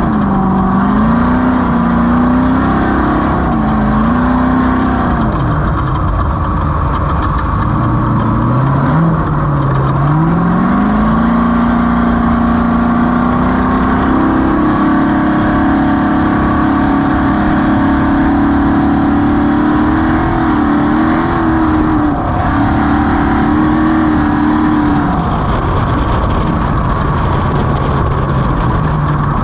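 Off-road race vehicle's engine under hard driving, its pitch rising and falling as it revs and shifts, over a steady rushing ride noise. It holds a higher, steadier pitch through the middle and drops lower near the end.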